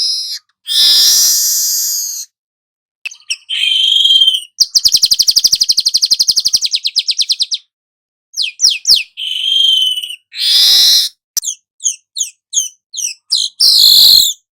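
Manyar kepala emas, a weaver bird, singing a harsh, buzzy song: scratchy bursts, then a rapid buzzing trill of about ten pulses a second lasting about three seconds, followed by short chips and quick down-slurred notes.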